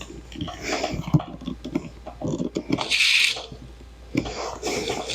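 Scattered light knocks, clicks and rubbing from hands setting a wooden block and a clamp against the window frame, with a short scrape about three seconds in.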